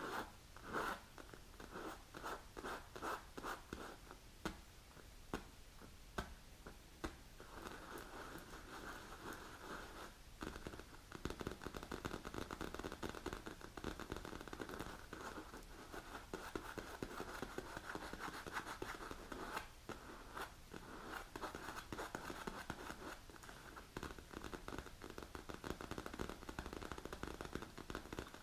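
Long natural fingernails scratching the leather cover of a manicure cushion. There are separate strokes for the first few seconds, then fast, continuous scratching from about a quarter of the way in.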